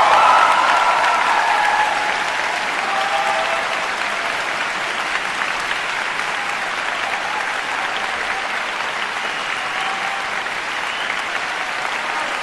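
Concert hall audience applauding, loudest at the start and then steady, with a few voices calling out over the clapping.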